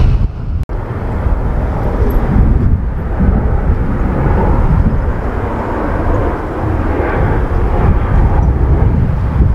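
Wind buffeting the microphone: a loud, uneven rumble that cuts out for an instant just under a second in.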